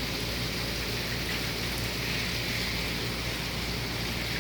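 Heavy thunderstorm rain falling steadily, a constant hiss of rain on surfaces.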